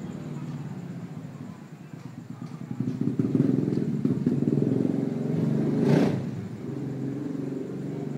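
An engine running with a low, rapid pulsing. It grows louder about three seconds in and swells briefly about six seconds in.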